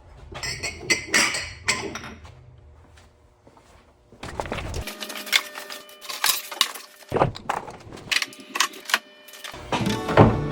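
A run of clicks, knocks and clatters in short, abruptly cut clips, as of hard objects being handled and set down, with music coming in near the end.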